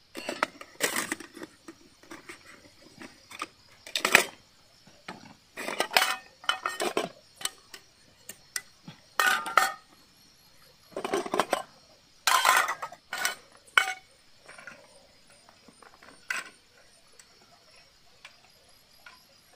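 Aluminium cookware clattering: a pot and a frying pan knocked, scraped and set down on concrete in irregular bursts, over a faint steady trill of crickets.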